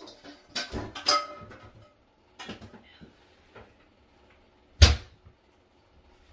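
Kitchen handling noises: a flurry of clattering knocks with brief ringing about a second in, a few lighter knocks, then a single loud thump shortly before the end, of the kind made by a cupboard door or drawer shutting.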